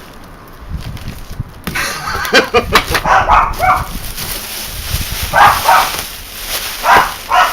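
Dog barking in several short barks, with some clattering and rustling of handling noise around two seconds in.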